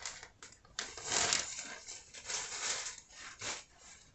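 Thin plastic clothing bag crinkling and rustling in a string of short, uneven bursts as it is handled and opened and a shirt is pulled out of it.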